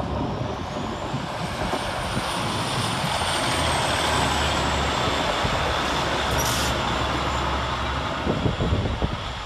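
A ScotRail Class 156 Sprinter diesel multiple unit passing close by, its underfloor Cummins diesel engines running with a steady low hum under the rumble of wheels on rail. A faint high whine rises over the first couple of seconds, and a few short knocks come near the end as it moves away.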